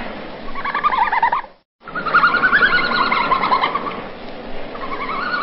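Red panda twittering calls: rapid, high, wavering squeaks. The sound cuts out for a moment near the two-second mark, then comes back as a longer run of squeals that slide down in pitch.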